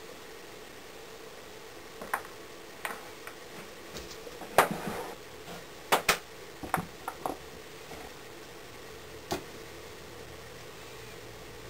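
Scattered clicks and light knocks of handling work on a wooden bench while a sand-casting mould is set up: a small silver model set down and moulding sand tipped into a wooden flask. The loudest knock comes a little before halfway, with a short rustle after it, and a faint steady hum runs underneath.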